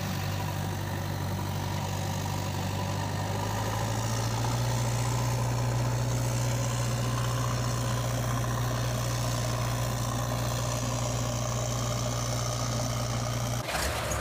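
Heavy engine idling steadily with a low hum, a little louder from about four seconds in; near the end it breaks off with a click and carries on at a lower pitch. The toys on screen have no engines, so this is an engine sound effect laid over the footage.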